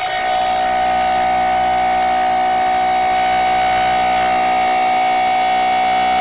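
Emergency alert siren tone held at one steady pitch, several tones sounding together like a civil-defence siren at full wind.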